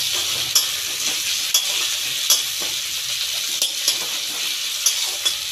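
Chopped onion, garlic, tomato and a bay leaf sizzling in mustard oil in a kadai as a metal spatula stirs them, with a sharp scrape or click of the spatula against the pan every second or so.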